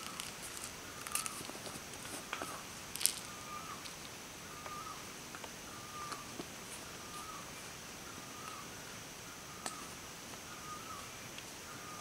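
A bird call repeating in short whistled notes, about one every three-quarters of a second, over a steady high buzz. A few sharp clicks and taps sound through it, the loudest about three seconds in.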